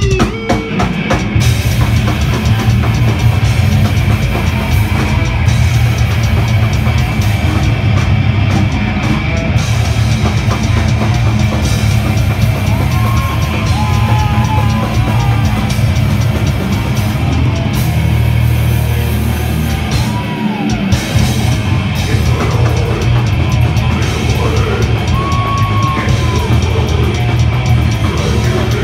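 A live metal band playing loud and dense: distorted electric guitars, bass guitar and a drum kit with heavy bass drum kick in suddenly at the very start, then keep up a steady, unbroken wall of sound.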